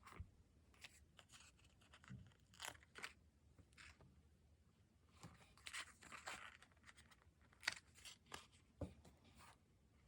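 Stickers and paper being handled, peeled and pressed down for diary decorating: quiet, short crackly rustles and peels with a few light taps, at an irregular pace.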